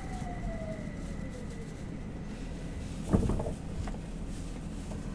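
Inside a Nagoya Municipal Subway 2000 series car with a refurbished IGBT VVVF inverter, running through the tunnel with a steady low rumble. A whine from the inverter and traction motors falls in pitch and fades out in the first two seconds as the train slows. About three seconds in there is a short clunk from the running gear.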